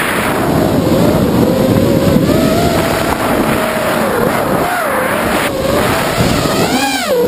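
A racing quadcopter's four Emax 2204 brushless motors and propellers whining close up on board, the pitch wavering up and down with throttle over a rush of air. Near the end the whine drops sharply and climbs back as the throttle is chopped and punched through a hard turn.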